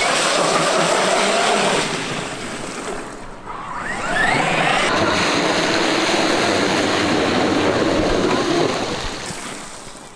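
Traxxas X-Maxx RC monster truck running, its brushless electric motor whining up in pitch as it accelerates, over a steady rushing noise. There are two loud runs, and the second fades away near the end.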